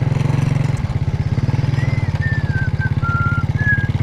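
Small motorbike engine running steadily while the bike is ridden, its exhaust pulsing evenly. From about halfway, a few thin whistled notes are heard at different pitches, some level and some falling.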